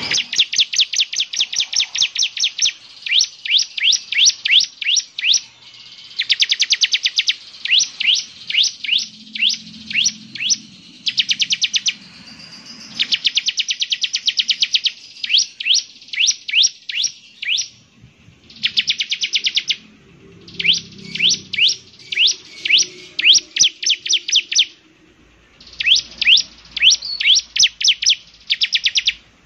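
Bar-winged prinia (ciblek) singing in fast runs of short, sharp chirps, several a second. The runs last one to two seconds, with brief gaps between them.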